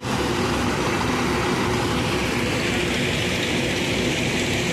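Heavy machinery running: a loud, steady mechanical din with a faint hum of engine tones.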